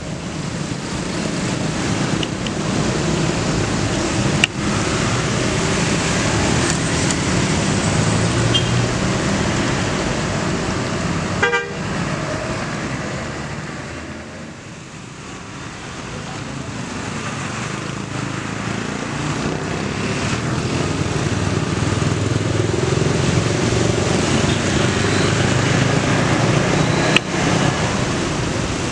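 Hino RK8 R260 coach's six-cylinder diesel engine running as the bus drives past, swelling and then fading about halfway through before a second coach's engine builds up. A short horn toot sounds about a third of the way in.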